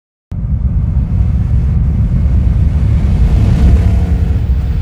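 Loud, deep rumble sound effect, cutting in abruptly and holding steady, like a heavy car engine running.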